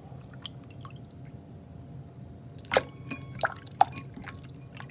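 Homemade borax-and-glue slime being squeezed and pressed by hand, giving a few short, wet squelching pops in the second half.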